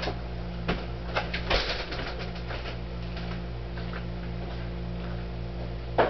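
Steady low electrical hum with faint hiss, broken by a few short clicks, two of them in the first two seconds.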